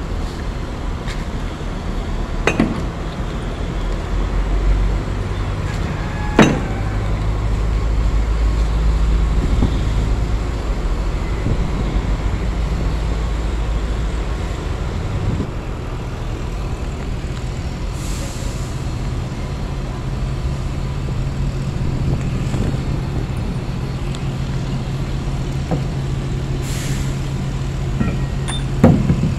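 A steady low mechanical drone of running machinery, its low hum shifting a few times and then holding steady. It is broken by a few sharp metal knocks from heavy steel chain parts being handled, including a cluster near the end.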